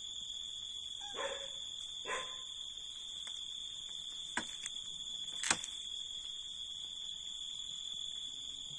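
Cats meowing briefly twice near the start, over a steady high-pitched whine that does not let up. Two sharp clicks come near the middle, the second one louder.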